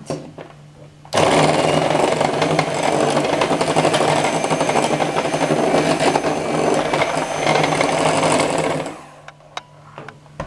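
Electric hand mixer running with its beaters in pancake batter in a glass bowl, a steady motor whir with churning. It starts about a second in and stops about a second before the end, followed by a couple of light clicks.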